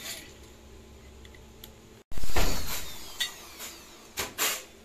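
Sheet-metal housing of a homemade coconut grater being handled and set onto its steel stand. There is a loud metallic clatter about two seconds in that dies away over about half a second, then several lighter knocks and taps.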